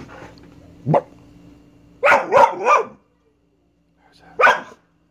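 A dog barking: a single bark about a second in, a quick run of three barks about two seconds in, then one more near the end.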